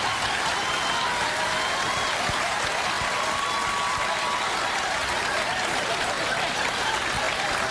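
Studio audience applauding steadily, with faint voices over the clapping.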